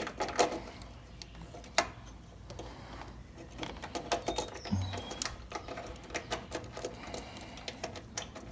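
Irregular light metal clicks and taps of a quarter-inch socket wrench and small bolt hardware being handled, with one sharper click about two seconds in.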